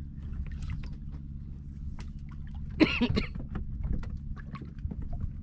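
Small fishing boat's engine running steadily with a low hum, with scattered light clicks. A brief loud voice-like burst comes about three seconds in.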